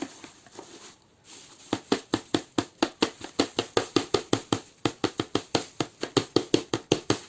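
A robot vacuum's dust bin being knocked in a rapid, even series of sharp taps, about six a second, to shake the collected dust and debris out of it. A single knock comes at the start, then the run of taps begins nearly two seconds in.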